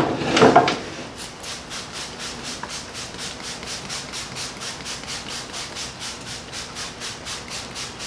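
Trigger spray bottle of water squirted over and over onto a car fender, a quick even run of hissy squirts at about five or six a second, wetting the panel down for wet sanding.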